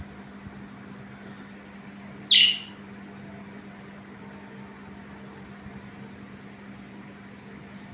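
A budgerigar gives a single loud, short call about two seconds in, over a steady low hum.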